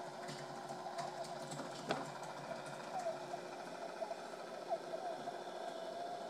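Small electric motor and plastic drive of the animated Lemax Spookytown Skull River display whirring steadily as the boats circle, with a wavering whine and occasional light clicks.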